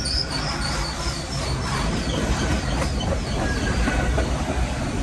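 Freight train's boxcars rolling past close by: a steady rumble and rattle of steel wheels on the rails, with a faint high wheel squeal fading out in the first second.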